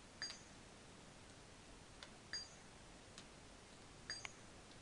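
Three short high-pitched beeps, about two seconds apart, over near silence.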